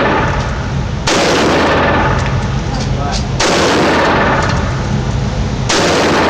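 Assault rifle fired in single shots, three of them about two and a half seconds apart. Each loud report trails off slowly into the next.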